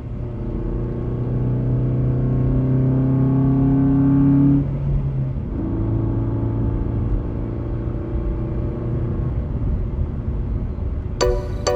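A toy car's motor running with a steady pitched hum that climbs slowly for the first four seconds or so, drops out briefly, then runs steady again. Music comes in just before the end.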